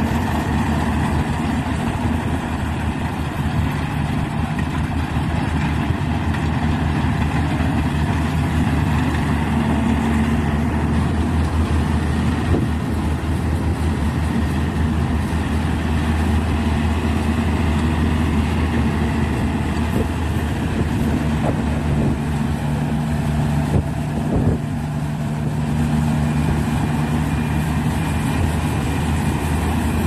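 Yanmar rice combine harvester's engine running steadily under load while harvesting rice, a continuous low hum that dips briefly about three-quarters of the way through.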